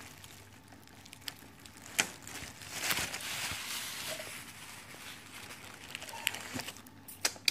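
Thin plastic carrier bag rustling and crinkling as it is handled, with scattered light clicks and taps. One sharper click about two seconds in, and the rustling is loudest around three seconds in.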